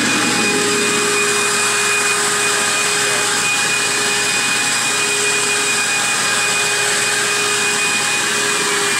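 BlackBoxVac Hurricane vacuum hold-down pump running with all four vacuum motors (both stages) on: a steady whine over a rush of air.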